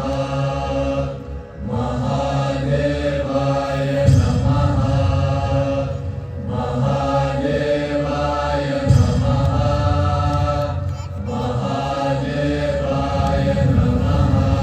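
Chanted mantra over a low drone, sung in phrases about five seconds long with brief breaks between them.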